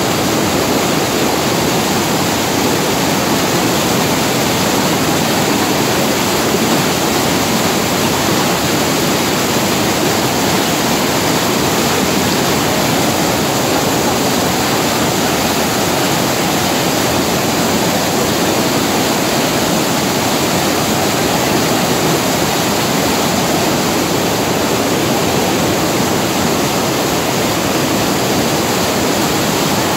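Loud, steady roar of white water cascading down over rocks, heard from right beside the falling torrent.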